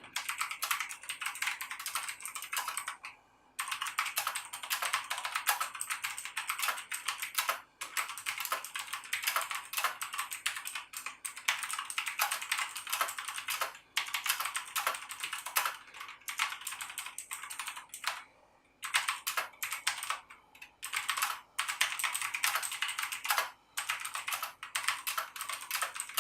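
Fast typing on a Delux KM02 mechanical keyboard with clicky Kailh blue switches: a dense run of sharp key clicks, broken by a few short pauses.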